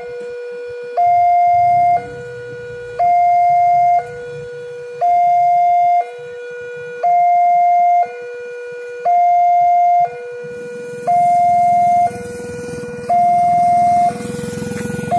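Railway level-crossing warning alarm sounding a two-tone electronic ding-dong, a lower and a higher tone taking turns about once a second, steady and unchanging, with the higher tone louder. From about ten seconds in, a rushing vehicle noise grows underneath.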